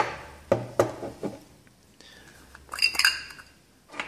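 Handling clicks and taps from a Zuiko lens and a Metabones Speed Booster adapter as their caps come off and the parts are set down on a wooden table. Several separate taps in the first second and a half, then a cluster of small metallic clinks with a brief ring about three seconds in, and one more tap near the end.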